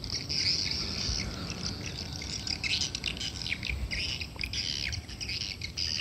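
Small birds chirping and twittering, many short high calls one after another, over a low outdoor rumble.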